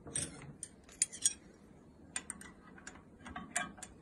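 Faint, scattered metallic clicks and clinks of a spanner being handled and fitted onto a rocker-arm lock nut in a small four-stroke engine's valve gear.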